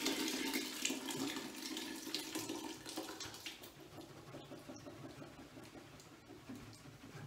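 Fermenting kaffir lime wine must (the first ferment) pouring from a plastic fermenting container into a cloth straining bag. The stream is heavy at first and tapers off to a trickle and scattered drips.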